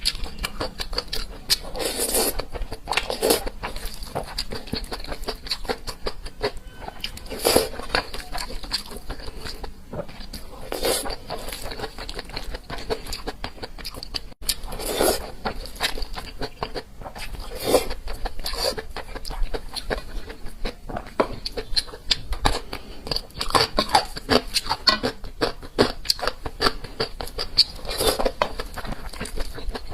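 Close-miked chewing and wet mouth sounds of a person eating a rice dish, with dense small clicks and a louder smacking or crunching bite every second or few.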